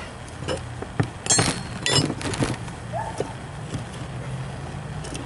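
Several sharp knocks and scraping clatters from handling the homemade welded-steel furnace shell, the loudest cluster between about one and two and a half seconds in, over a steady low hum.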